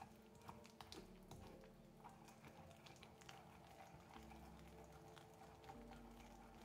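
Faint background music with soft, scattered taps and scrapes of a wooden pestle grinding basil pesto in a marble mortar.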